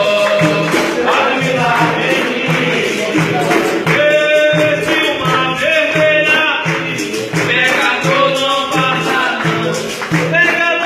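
Capoeira music: a berimbau and a pandeiro (tambourine) keeping a steady beat, about two low pulses a second, while a voice sings over it.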